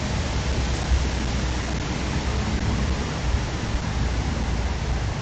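Steady, even hiss of background noise with a low rumble underneath and no distinct calls, knocks or other events.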